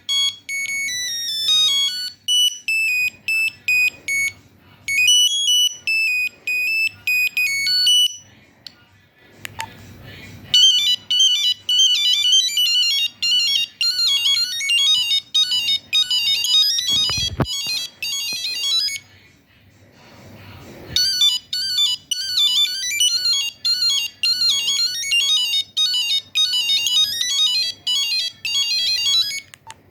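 Nokia 2100 monophonic ringtones beeping out quick single-note melodies from the phone's speaker, one tune after another with short pauses between them.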